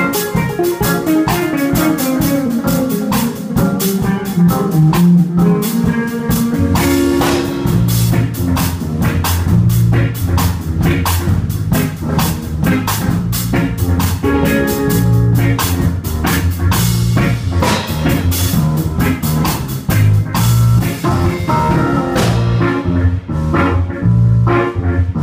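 Live band music with no singing: a keyboard and drums play a falling melodic line, and a strong bass line comes in about six seconds in.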